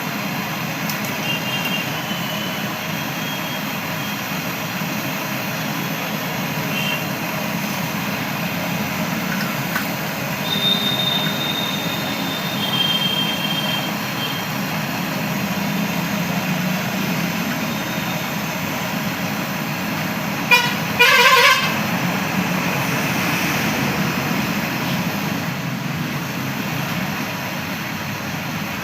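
A steady rushing background noise, with a vehicle horn honking twice, a short toot and then a longer one, about two-thirds of the way through.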